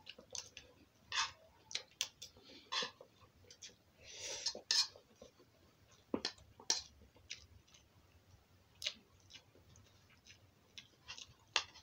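Metal eating utensil clicking and scraping against a bowl while eating, in scattered irregular taps, with a brief rustle about four seconds in.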